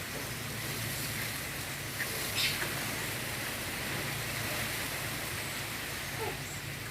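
Strong wind blowing: a steady rushing noise, with a brief faint chirp about two seconds in.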